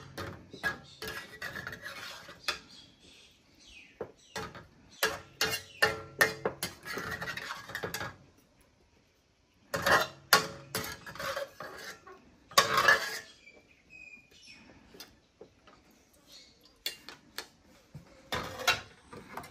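Metal spatula scraping and clinking against a steel wok as stir-fried green beans and beef are scooped out onto a plate. It comes in three bouts with short pauses between them.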